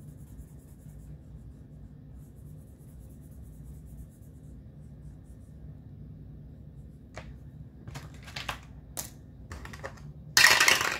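Marker tip scratching faintly on paper as a square is coloured in, then a few sharp clicks and, near the end, a loud clatter of a 12-sided and a 6-sided die rolling through a dice tower.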